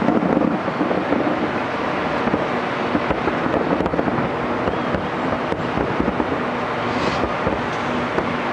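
Fireworks crackling: a steady, dense run of small pops and hiss.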